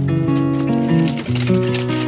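Background music: a melody of held notes that change every half second or so over a sustained bass line.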